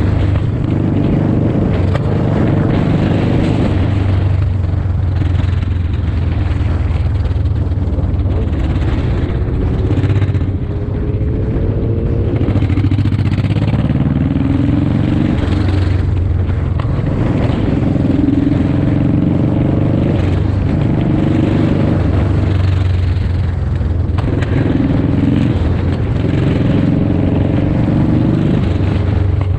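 Motorcycle engine running at highway speed, its pitch rising and falling with the throttle, over constant wind and road noise.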